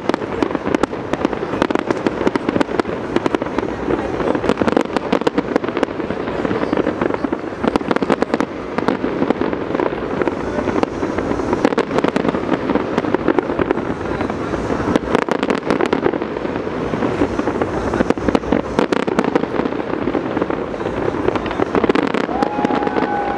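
Fireworks display: a dense, continuous barrage of bangs and crackling with no break. A short steady tone sounds near the end.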